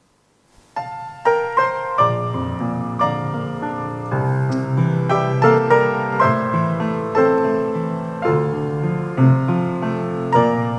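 Piano playing the instrumental introduction to a song. Notes begin about a second in and build into full chords, with a steady flow of struck notes.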